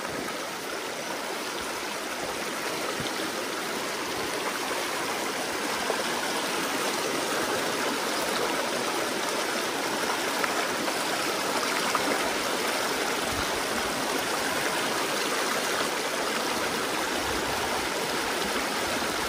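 Fast-flowing trout stream rushing over rocks and rapids: a steady, even rush of water that swells slightly over the first several seconds.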